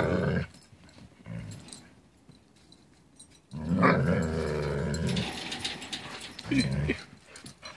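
Alaskan Malamute play-growling through a fence: a low, grumbling growl of nearly two seconds starting about three and a half seconds in, with a short grunt before it and a brief higher call near the end. It is a sign of play, not aggression.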